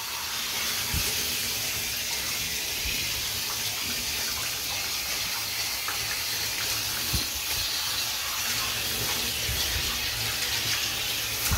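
Handheld bathtub shower spraying water steadily over a dog's wet coat, rinsing out the shampoo.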